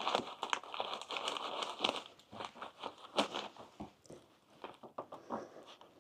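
Knife blade cutting and sawing through the hard plastic tip of a glue cartridge: irregular crunching and scraping with many small clicks, easing off about four seconds in before a few more scrapes.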